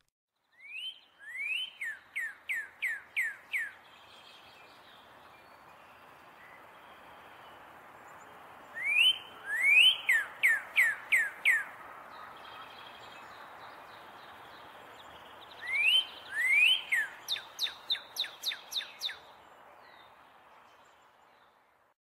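Northern cardinal singing three phrases several seconds apart. Each phrase opens with a couple of rising whistles and then runs into a quick series of falling slurred whistles, about four a second, over a steady hiss of outdoor background.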